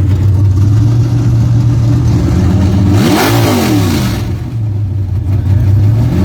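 A Camaro's newly fitted 434 V8 engine, fed by a large carburetor, idling, then revved once about three seconds in: the pitch climbs and falls back within about a second before it settles to idle again.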